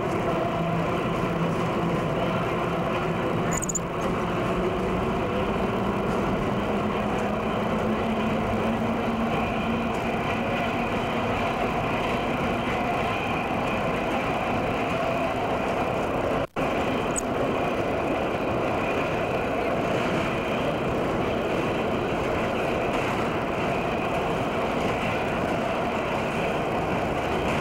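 Subway train running: a steady, continuous rumble with a low hum that climbs a little in pitch during the first ten seconds. The sound drops out for an instant about sixteen seconds in.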